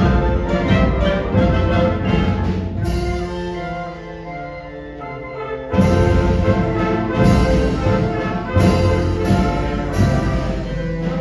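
High school concert band playing, with brass prominent. The band thins to a softer held passage a few seconds in, then the full band comes back in loudly about halfway through with a series of accented hits.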